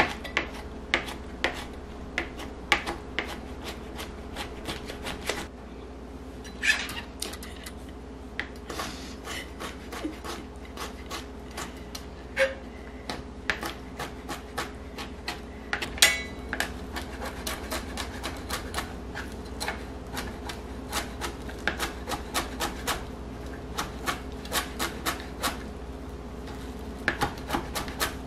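Chef's knife chopping soft vegetables and herbs on a plastic cutting board: rapid runs of sharp taps as the blade strikes the board, with brief pauses between runs. A faint steady hum lies underneath.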